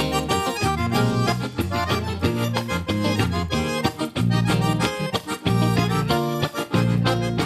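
Instrumental interlude of a gaúcho song: an accordion plays a quick melody over a band accompaniment with a bass line.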